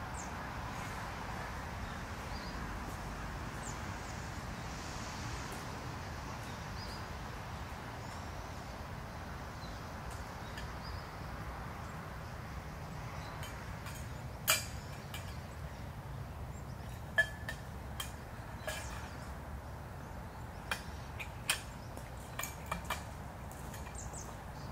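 Open-air lakeside ambience: a steady low background rumble. From about halfway through come a few scattered sharp clicks and knocks, the loudest two about fourteen and seventeen seconds in, as camping gear is handled.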